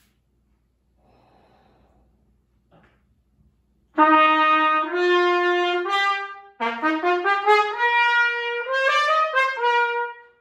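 Solo trumpet starting to play about four seconds in: a first phrase that rises to a held note, a short break, then a run of quicker notes climbing step by step and ending on a held note.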